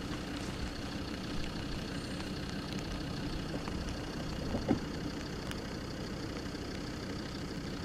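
Van engine idling steadily, with a brief louder sound about four and a half seconds in.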